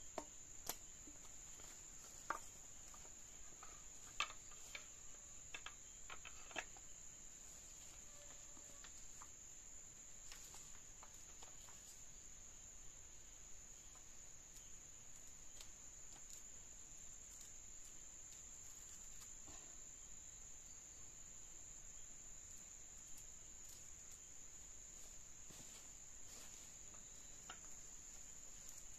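A steady, high-pitched insect chorus drones without a break. Several sharp clicks and knocks come close together in the first seven seconds or so, then only the chorus is left.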